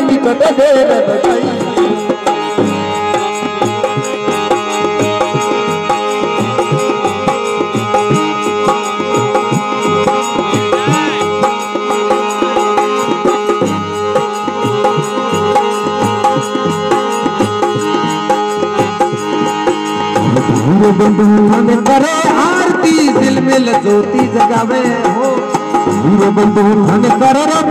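Live Rajasthani devotional bhajan music: tabla drumming with steady held melodic notes through a long instrumental stretch, and a man's singing voice coming back in about two-thirds of the way through.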